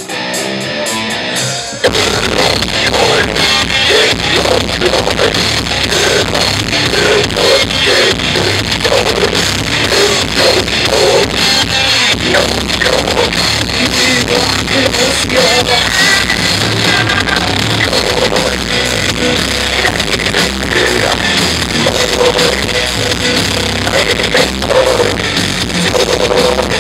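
Live metal band playing through a club PA, recorded from the crowd: distorted electric guitars, bass, drum kit and vocals. The full band comes in loudly about two seconds in after a quieter opening.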